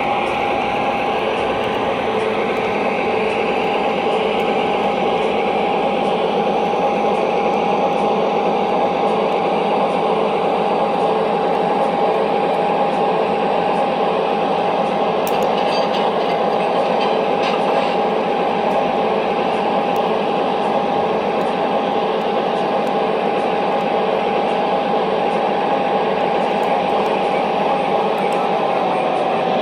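Train locomotives running steadily: a constant whine over a dense rumbling drone, with a lower pulsing tone beneath it and a few light clicks about halfway through. The whine starts to drop in pitch at the very end.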